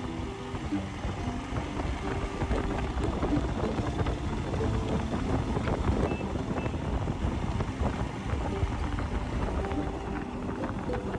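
Wind rushing over the microphone with a Royal Enfield Himalayan 411 motorcycle's single-cylinder engine running underneath, ridden along a road. Background music fades out within the first second and comes back near the end.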